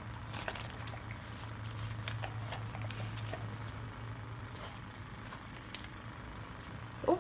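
Scattered light clicks and taps as a Doberman noses and mouths at a small live mullet on a concrete floor, over a low steady hum. A short, louder sound comes right at the end.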